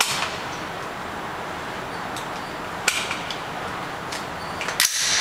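AR-15 rifle in .223/5.56 firing single shots in an indoor range: one at the start, another about three seconds in, and two close together near the end, with fainter shots in between, over a steady background hiss.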